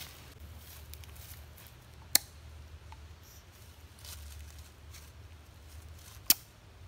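Two sharp, short clicks about four seconds apart from a syringe dart being handled, over a low steady rumble.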